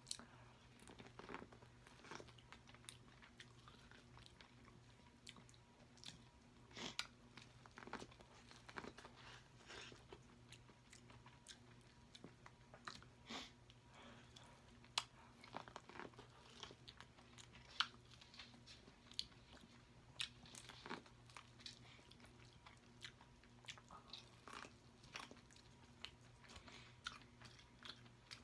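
A person chewing and biting into boiled corn on the cob: irregular wet crunches and small mouth clicks, scattered and uneven.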